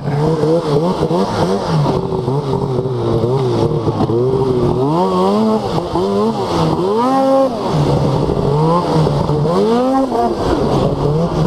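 Snowmobile engine running hard on the throttle, its pitch climbing and dropping again and again as the rider accelerates and eases off.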